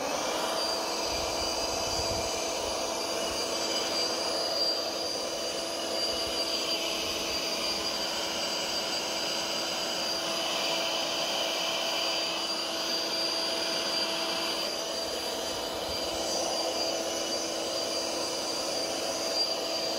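Small handheld Milwaukee blower running at one constant speed, a steady whine over a rush of air.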